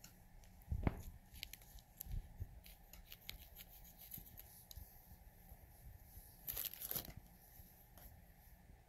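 Scissors snipping open a black foil blind-bag pouch, with faint crinkling of the foil and scattered sharp clicks; a louder rustle of the foil comes about two-thirds of the way through.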